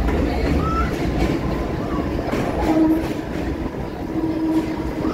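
Mumbai suburban local electric train running, heard from on board: a steady rumble with the wheels clattering over rail joints, and a low hum that comes and goes twice.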